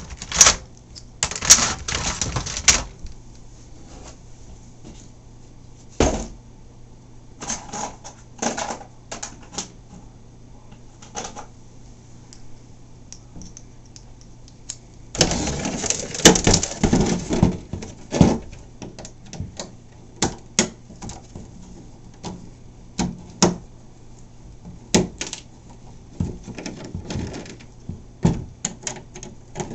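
Irregular clicks, taps and clatter of hard plastic parts being handled while an RC catamaran's hull is taken apart: wiring and small parts pulled about and a screwdriver worked on the hull screws. About halfway through there is a denser, louder stretch of rustling and clattering lasting two or three seconds.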